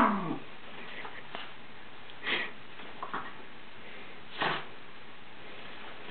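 Scottish terrier sniffing: a handful of short, separate sniffs spaced a second or two apart.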